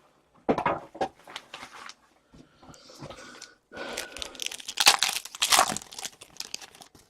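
Hockey card packaging being torn open and crinkled by hand: a few scratchy rustles, then from about four seconds in a longer, louder stretch of tearing and crinkling wrapper.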